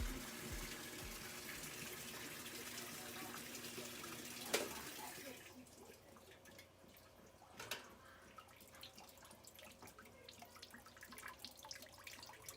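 Water rushing into a Kenmore top-loading washing machine's drum through its newly replaced inlet valve, with a faint hum, cutting off with a click about four and a half seconds in. After that only a few small ticks remain.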